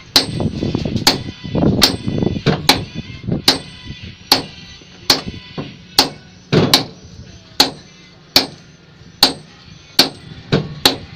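Sledgehammers taking turns striking a precast concrete pile, knocking off concrete to bare the steel reinforcement for cutting. Sharp ringing blows, a little more than one a second.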